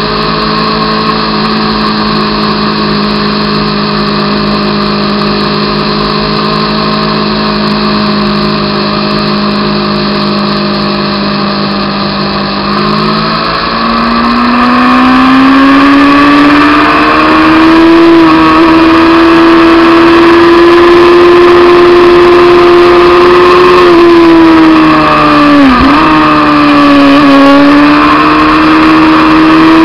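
Honda CBR600 F2's inline-four engine running at steady cruising revs, then rising in pitch and growing louder about halfway through as the bike accelerates. It holds the higher revs, with a brief sharp dip and recovery near the end.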